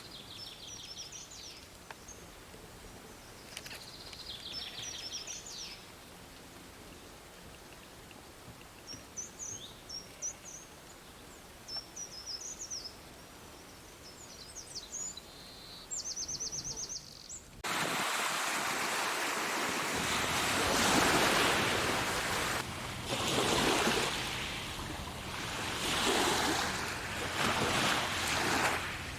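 Songbirds singing short chirps and rapid high trills in a quiet spot. Then, about two-thirds of the way in, a sudden cut to loud ocean surf rushing and breaking in waves.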